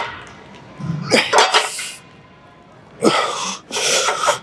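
A man exhaling forcefully with each pull of a plate-loaded T-bar row, about three hard, hissing breaths about a second apart.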